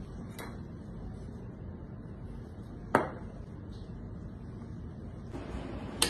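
Kitchen work over a steady low background hum: two sharp knocks, one about halfway through with a short ring, the loudest, and another right at the end.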